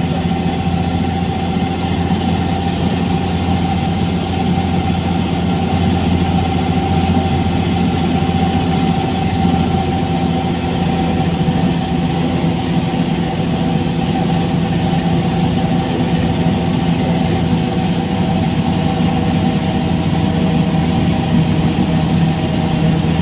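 Mercedes-Benz O405N2 city bus engine running steadily at one constant speed, heard from inside the passenger cabin as an even, unchanging hum.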